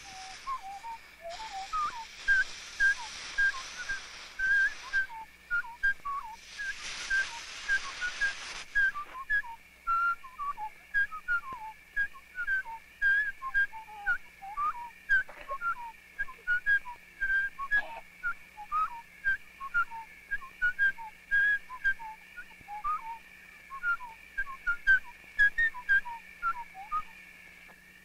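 Rainforest ambience: a rapid, continuous series of short falling whistled notes, like forest birds calling, about two or three a second, over a steady high tone. A hiss swells twice in the first nine seconds.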